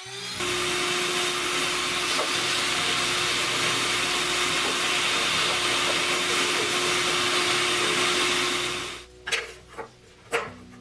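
An electric motor runs steadily with a constant hum over a rushing noise, then cuts off about nine seconds in; a few light knocks and taps follow.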